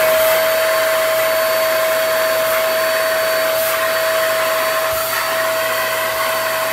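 EyeVac PRO touchless stationary vacuum running at full speed, a steady high whine over a loud rush of air, sucking swept dirt into its floor-level intake.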